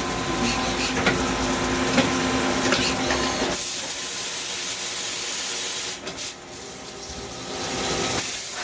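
Swiss-type CNC lathe running with its high-pressure coolant spraying: a steady hiss over a machine hum, with a few faint ticks in the first seconds. The hiss dips for about a second and a half near six seconds in, then returns.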